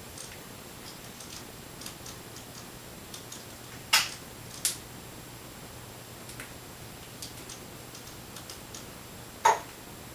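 Scattered short, sharp clicks from an African grey parrot: two louder ones close together about four seconds in and another near the end, with fainter ticks between.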